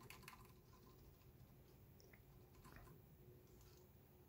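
Near silence with a handful of faint keyboard key taps spread through it, keys being pressed to step through a BIOS setup menu.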